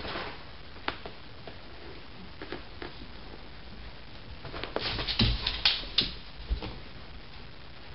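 A kitten and a large dog scuffling on a laminate floor: light scattered clicks of paws and claws, then a burst of louder scuffs and thumps about five to six and a half seconds in as the dog shifts its body.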